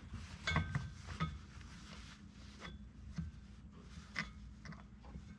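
Irregular rustles and small clicks of hand work: a shop rag wiping around the fuel-water separator housing and fingers turning out its knurled brass thumb-screw drain plug.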